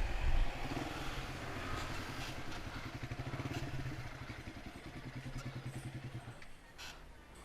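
Motorcycle engine slowing from riding speed to an idle with a fast, even pulse, with wind rumble on the microphone at first. The engine cuts off abruptly a little over six seconds in, and a few light clicks follow.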